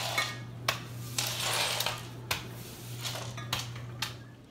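Broom sweeping broken glass shards across a wooden floor: the shards clink, tick and scrape, with several sharp clicks and a longer scratchy sweep about a second in.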